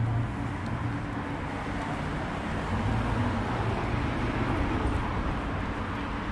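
Steady road traffic noise: the low hum of passing vehicles swells slightly around the start and again about three seconds in.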